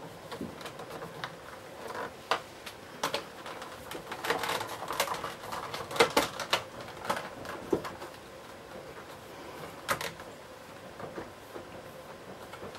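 Scattered clicks, taps and knocks of the base trim being fitted to the underside of a Hoover Junior 1346A upright vacuum cleaner, busiest and loudest about four to seven seconds in.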